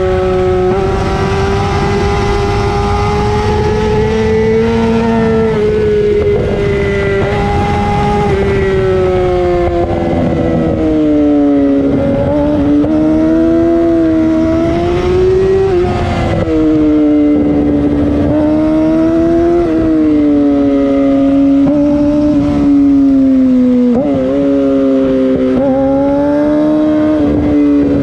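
Yamaha YZF-R6 inline-four through a LeoVince SBK full-system exhaust, running hard at high revs, its pitch falling and climbing again several times with throttle and gear changes. Wind rushes over the microphone underneath.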